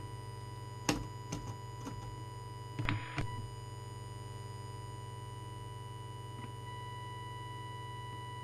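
Steady test tone from a small audio oscillator held over the microphone of a CB radio, used to set the transmitter's deviation, over a low mains hum. A few clicks and a brief rustle of handling come in the first few seconds, and a second, higher tone joins near the end.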